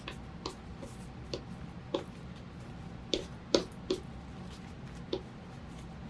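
Small sharp clicks and taps, about a dozen at an uneven pace of roughly two a second, from a handheld glue applicator being pressed and dabbed onto a paper filigree cut-out.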